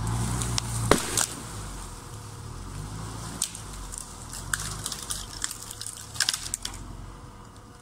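Opel Frontera 2.0i's petrol four-cylinder engine running at low speed as the SUV drives off, with sharp cracks and crunches of its tyres rolling over twigs and branches on a dirt track. The engine fades steadily as it pulls away.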